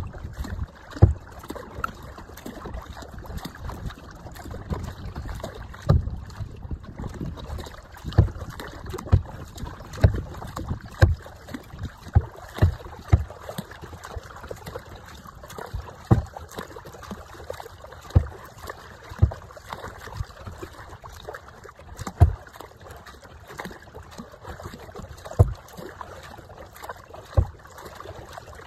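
Water slapping and lapping against a plastic kayak's hull as it moves over choppy water: irregular low thumps every second or few, over a steady wash of water.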